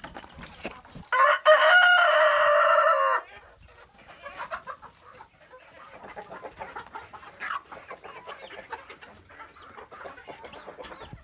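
A rooster crows once, loud and about two seconds long, beginning about a second in. Hens cluck quietly through the rest.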